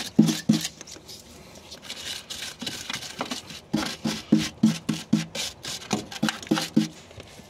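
Wire brush scrubbing rust and caked dirt off the bare steel door sill of a Mercedes Sprinter van, in quick back-and-forth strokes. The strokes go more quietly for a couple of seconds, then pick up at about three a second.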